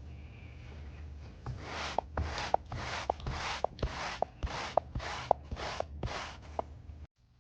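Lilly Brush pet hair removal tool scraping repeatedly across fabric to lift embedded dog hair: about ten quick strokes, roughly two a second, starting about one and a half seconds in.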